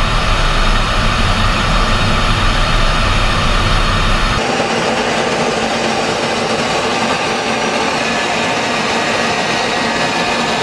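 Steady noise of a jet fighter in flight heard on board: engine and rushing air with a heavy low rumble. About four seconds in it switches abruptly to a thinner, hissier jet noise with much less low end.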